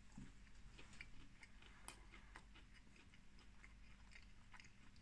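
Faint chewing of a mouthful of popcorn chicken, with soft scattered mouth clicks in near silence.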